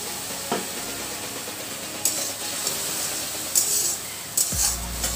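Potatoes in spice paste sizzling in a metal kadai with a little water just added, and a steel spatula scraping across the pan in several short strokes from about two seconds in.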